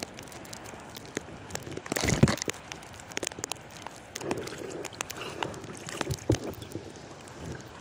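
Lake water sloshing and lapping right at the microphone as people wade through chest-deep water, with a louder splash about two seconds in and scattered small clicks and knocks.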